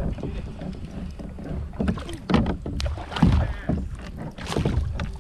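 Water splashing and sloshing around a kayak, in several irregular bursts over a low rumble, the loudest a little past three seconds in.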